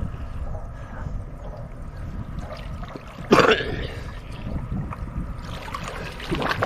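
Water lapping and gurgling against the side of a small wooden boat as a man swims and dives close beside it. A short splash comes about three seconds in, and a smaller one near the end.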